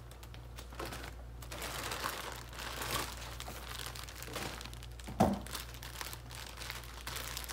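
Plastic bags rustling and crinkling as a bottle wrapped in a clear plastic bag is pulled from a black plastic bag and handled, with one sharper, louder sound about five seconds in.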